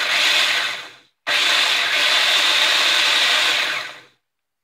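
Food processor pulsed twice, its blade grinding game bird feed crumbles into smaller pieces. The first burst dies away about a second in; the second runs for about two and a half seconds, then stops.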